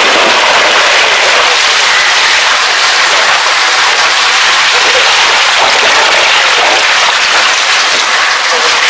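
Ice water and seer fish gushing out of a tipped plastic barrel into a plastic basket and onto a wet wooden deck: a steady, loud splashing rush.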